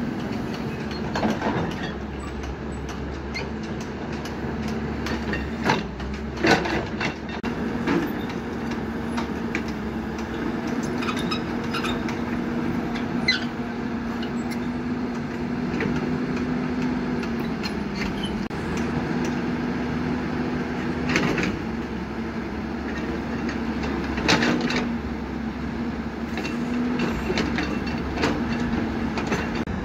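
Caterpillar hydraulic excavator's diesel engine running steadily, its drone shifting slightly as the hydraulics take load, with scattered sharp clanks and knocks as the bucket digs and moves soil.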